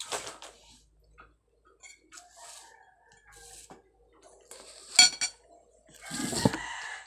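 Metal spoon scraping and clinking against a bowl while eating, with one sharp clink about five seconds in. Near the end comes a louder stretch of rustling and bumping, as things on the table are handled.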